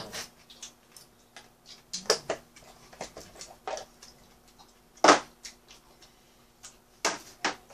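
Chopsticks clicking and tapping against dishes and bowls while eating: a few scattered sharp taps, the loudest about five seconds in.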